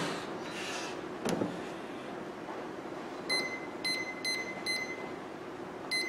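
Microwave oven keypad beeping as its control-panel buttons are pressed to set the cooking time: four short, high, single-pitched beeps in quick succession about three seconds in, and one more near the end. A click comes about a second in.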